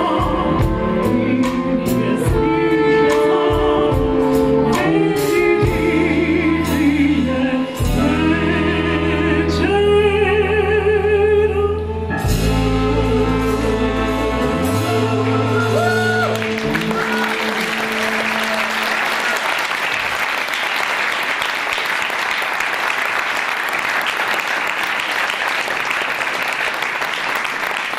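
Woman singing the closing phrases of a song with vibrato over a live band with bass guitar and drums; the song ends a little past halfway and the audience applauds for the rest.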